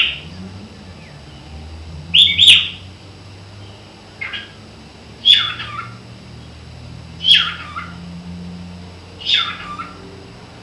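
Cockatiel calling loudly over and over, a harsh call about every two seconds, each sliding down in pitch; the bird is frightened.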